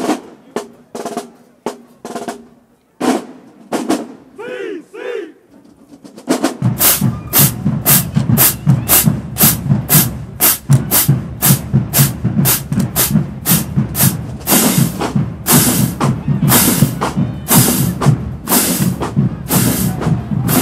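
Marching band drumline playing: sparse snare and stick hits at first, then about six seconds in the full drumline comes in with snares and bass drums in a fast, steady cadence.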